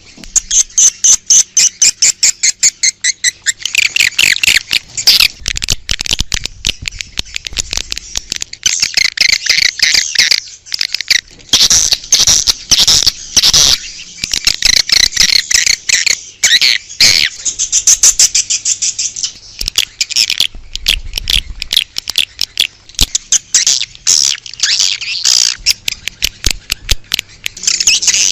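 Swiftlets twittering and chirping in a fast, unbroken chatter, many rapid high chirps with pitch sweeps: an outdoor swiftlet call recording of the kind played to lure swiftlets to a nesting house.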